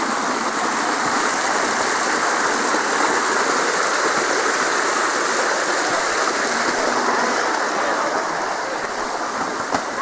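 Creek water rushing steadily over rocks in small cascades, a little softer near the end.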